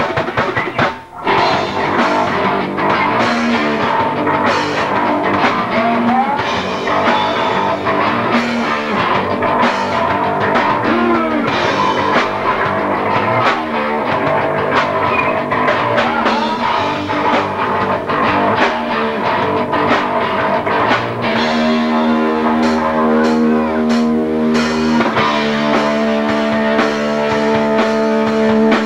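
Rock band playing live at full volume: guitars and drum kit. In the last third the music settles into long held chords.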